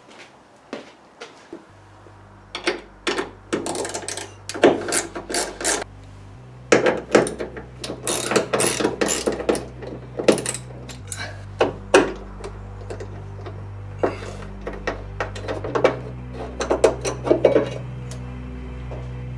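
Quick clicks and metallic knocks of a hand tool working the bolts of a car roof's underside bracket loose. Background music with a low bass line comes in about two seconds in.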